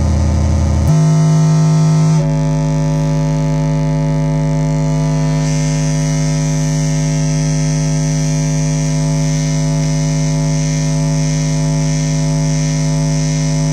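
Metsään Dirty Drone [anarchy] triangle-oscillator drone synth putting out a loud, buzzy, noisy drone. Its pitch jumps abruptly about one second and again about two seconds in, then holds one steady tone with a hiss on top that brightens about halfway through.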